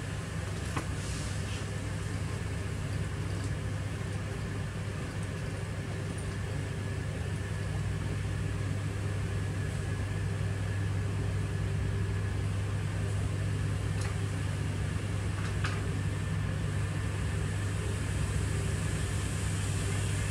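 Diesel engine of a semi-tractor with a dump trailer running steadily at idle, a low constant drone, with a few faint clicks.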